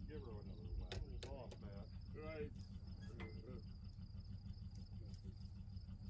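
Insects chirping steadily, a fine high pulsing trill, with faint distant men's voices in the first half and a low steady hum underneath.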